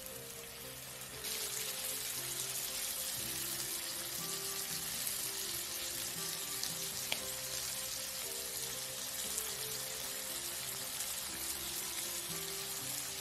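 Shrimp sizzling as they fry in hot oil with garlic in a nonstick pan. The sizzle jumps louder about a second in, as the raw shrimp hit the oil, and then holds steady.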